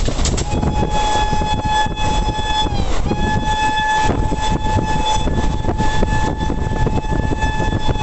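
Train horn sounding two long blasts, the first about two and a half seconds and the second about five, each sagging in pitch as it cuts off, over the steady rumble and rail clatter of a moving train.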